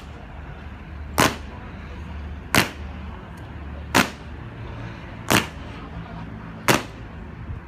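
Honor guards' boots stamping on stone paving in unison during a slow ceremonial march: five sharp, loud clacks, one about every second and a half, over a low steady background hum.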